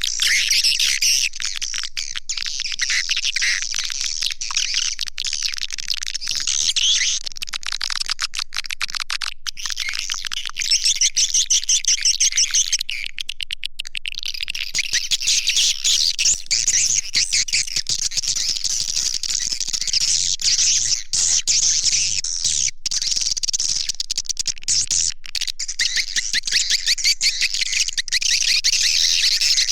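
Swiftlet lure call: a dense, continuous chorus of rapid chirping trills, played to draw edible-nest swiftlets into a swiftlet house.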